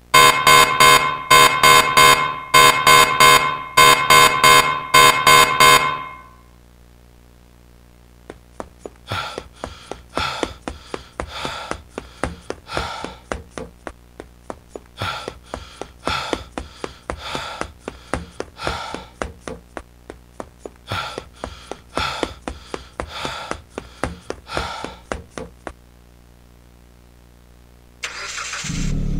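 A harsh electronic buzzer alarm sounding in quick, loud pulsing bursts for about six seconds. It is followed by a long run of short, sharp knocks, roughly two a second. A burst of noise with a low rumble comes in near the end.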